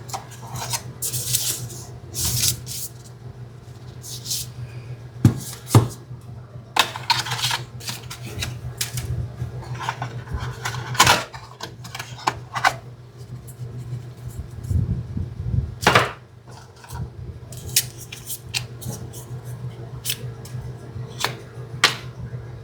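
Hands unboxing a phone: irregular clicks, taps and rustles as the box, packaging and parts are handled and set down, over a steady low hum.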